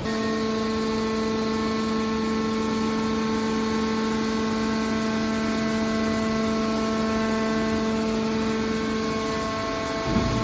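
Horizontal hydraulic metal baler's hydraulic power unit running, a steady whining hum that starts suddenly and holds at one pitch.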